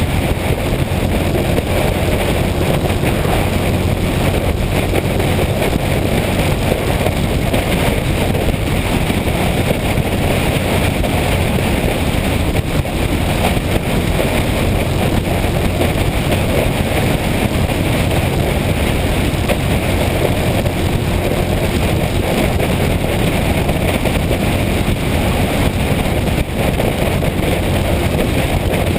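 Motorcycle under way: steady wind rush over the microphone with the engine running underneath, unchanging throughout.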